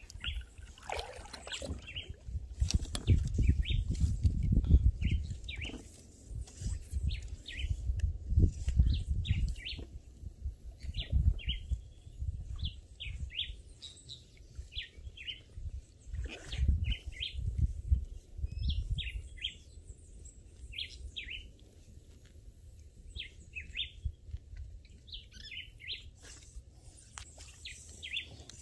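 Small birds chirping, short high calls repeated over and over. Low rumbles come and go on the microphone, loudest in the first few seconds and again in the middle.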